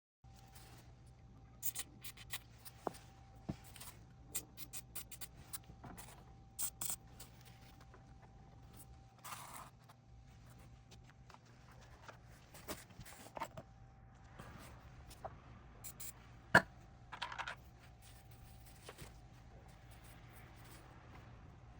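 Scattered light clicks, taps and short scrapes of small parts being handled by hand, over a faint steady hum; the sharpest click comes about two-thirds of the way through.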